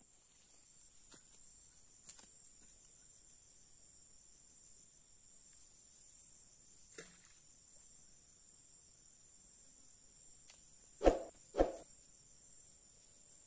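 Insects droning steadily with a faint high-pitched buzz, broken by a few soft clicks. About eleven seconds in, two sharp thumps come half a second apart and are the loudest sounds.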